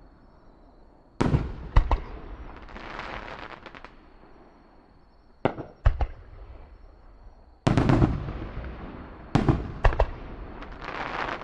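Fireworks shells bursting: about seven sharp bangs in uneven clusters, some followed by a long crackling tail.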